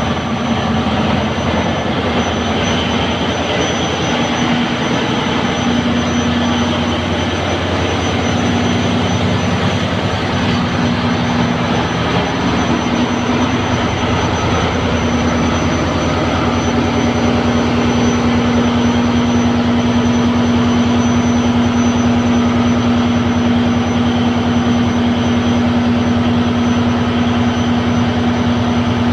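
A fishing boat's inboard engine running steadily in its engine room, a loud continuous hum with a strong low drone.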